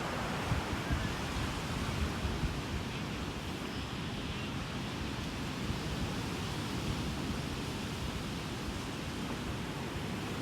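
Steady rushing outdoor noise of wind, with gusts buffeting the microphone as an uneven low rumble.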